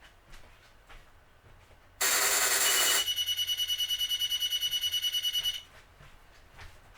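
An electronic alarm goes off: a loud, harsh buzz for about a second, then a rapidly pulsing high beep at about ten pulses a second for two and a half seconds, cutting off suddenly.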